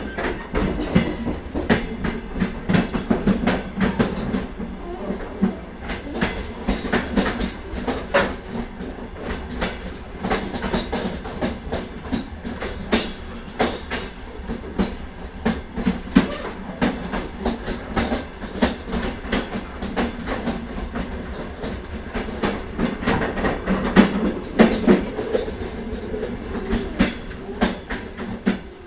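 Moving train: a steady rumble with wheels clattering over rail joints, growing louder for a while near the end.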